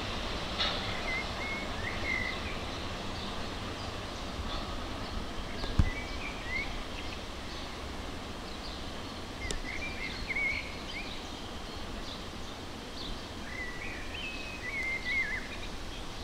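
Small songbirds chirping in short bursts of phrases over a steady low background rumble, with a single sharp click about six seconds in.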